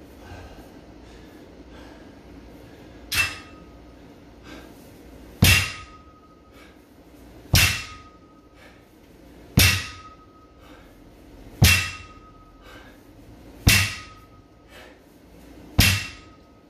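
A barbell loaded with bumper plates coming down on a rubber gym floor on each deadlift rep: seven heavy thuds about two seconds apart, the first one lighter, each with a short metallic ring from the bar and plates.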